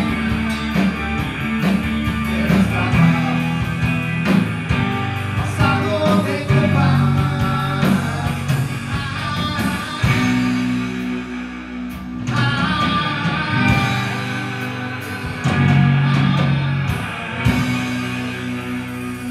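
Live rock band playing: electric guitars and drums.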